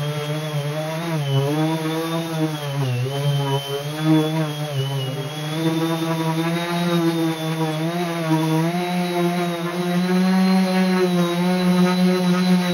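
Random orbit sander motor running on a black walnut slab. Its hum dips and recovers in pitch several times in the first half, then holds steadier.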